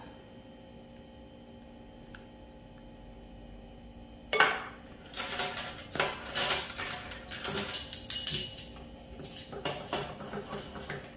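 Quiet for the first few seconds, then, from about four seconds in, a run of clinks and clatters as metal measuring spoons and nested plastic measuring cups are picked up and handled on a stone countertop.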